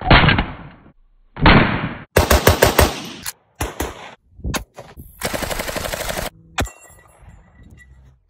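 Gunshots from several firearms cut together one after another. Two single heavy shots about a second and a half apart open it, then comes a fast string of shots, a few more singles, and a rapid run of fire from about five seconds in.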